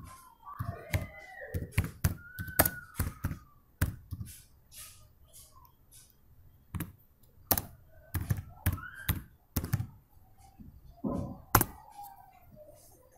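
Computer keyboard being typed on: irregular runs of sharp key clicks with short pauses between words.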